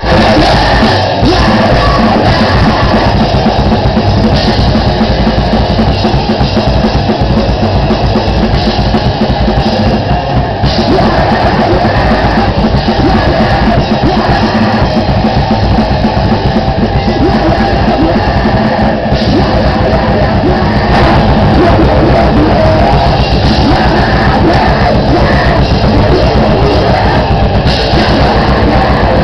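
Grindcore band playing live: drum kit, distorted guitar and vocals, loud and unbroken throughout.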